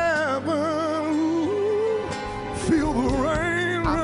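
A man singing a gospel worship song over instrumental backing, holding long wordless notes with a wide vibrato.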